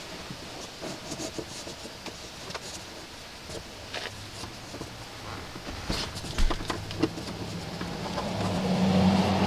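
Fingers tucking a thin dash cam cable into the gap between a car's B-pillar plastic trim and the headliner: scattered light clicks, taps and rubbing on the trim. From about halfway a low, steady hum sets in and grows louder near the end.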